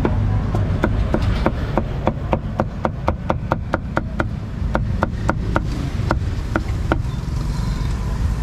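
A cleaver chopping meat on a wooden block, with quick, regular strokes several a second that stop near the end. A steady low traffic rumble runs underneath.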